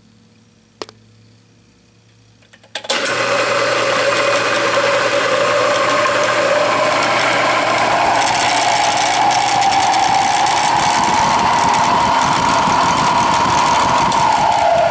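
A circa-1962 Rockwell Delta 15-inch variable-speed drill press is switched on about three seconds in and runs with a steady mechanical whir of its belt, pulleys and gears. A whine in the sound rises slowly in pitch and dips slightly near the end.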